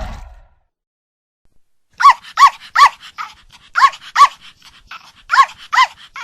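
A dog barking: about eight sharp barks in quick groups of two or three, starting about two seconds in. A loud roaring noise dies away just at the start.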